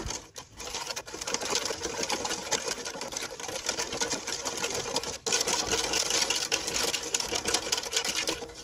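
A ladle stirring and scraping against an aluminium pot in quick, rapid clicking strokes, working coconut sugar and salt into water until they dissolve. The clicking breaks off briefly about five seconds in.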